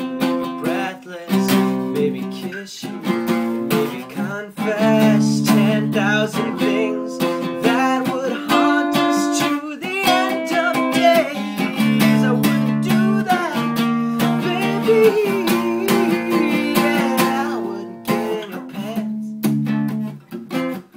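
Acoustic guitar strummed in chords that change every second or two, with a man's voice singing over it through the middle of the passage.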